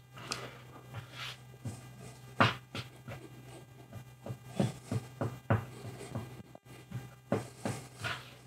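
A small hand tool scraping and rubbing in short, irregular strokes over a patch of filler on a hard tabletop, with a steady low hum underneath.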